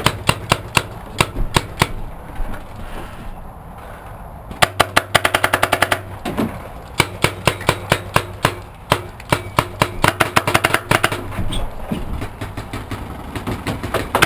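Paintball markers firing: sharp pops, some single and some in rapid strings, thinning out for a couple of seconds about two seconds in, then a dense string of shots.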